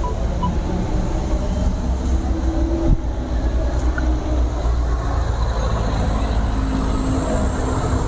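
Steady low rumble of road traffic, with one sharp knock about three seconds in.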